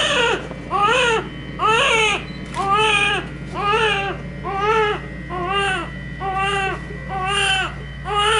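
Newborn baby crying just after delivery, a steady run of short wails about one a second, each rising and falling in pitch.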